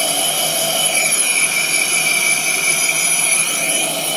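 ResMed Escape II CPAP machine's blower running steadily, a loud rush of air with several steady high whistling tones over it. The owner counts the whistle as a fault in the machine.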